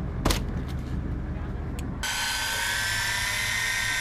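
Low rumble with a sharp knock near the start. About halfway through, an electric fishing reel's motor starts a steady whine as it winds line up from deep water.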